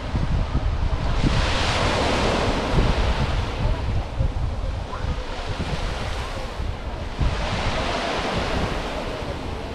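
Small Mediterranean waves breaking and washing up a sandy beach, the surf swelling three times a few seconds apart. Wind buffets the microphone with a low rumble underneath.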